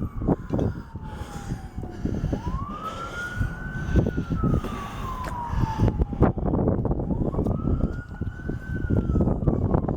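Emergency vehicle siren wailing, its pitch sweeping up quickly and sliding slowly back down, about every four to five seconds. A heavy, uneven rumble with scattered knocks runs underneath.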